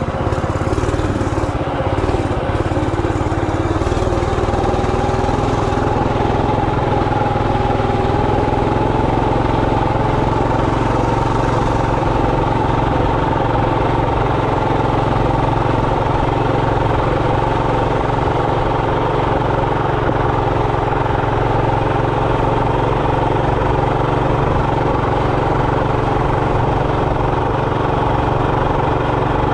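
Coleman RT200 minibike's 200cc single-cylinder engine running under way. Its pitch climbs as it picks up speed about five seconds in, then holds steady at cruising speed.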